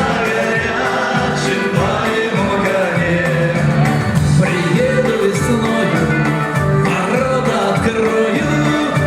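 Band music with a steady, pulsing bass beat and singing.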